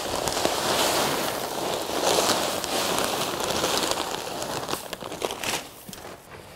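Grit pouring from a sack into a wheelbarrow of soil and compost: a steady gritty rushing with small rattles and the sack crinkling, which dies away about five and a half seconds in.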